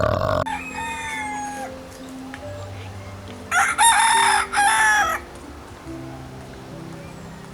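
Rooster crowing: a shorter call about half a second in, then a loud two-part crow about three and a half seconds in, over soft background music with long held notes.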